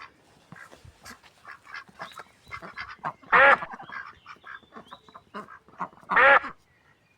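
A flock of waterfowl calling: a steady run of short, soft calls, with two loud, drawn-out calls about three seconds apart.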